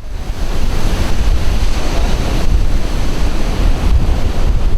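Sea surf breaking, with heavy wind buffeting the microphone and a loud low rumble. It fades off near the end.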